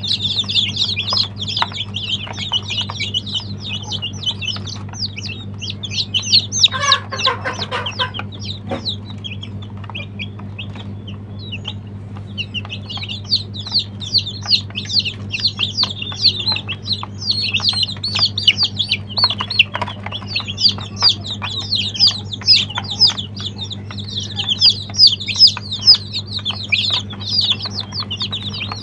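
A group of baby chicks peeping, many short high-pitched chirps overlapping almost continuously, thinning out for a few seconds about a third of the way in. A brief lower call stands out about seven seconds in, over a steady low hum.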